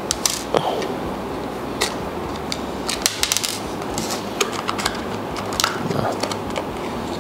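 Hard plastic clicking and tapping as a WLtoys 284010 1/28-scale RC car is handled, its body clips pulled and its plastic body shell lifted off the chassis: a scatter of short sharp clicks, densest about three seconds in.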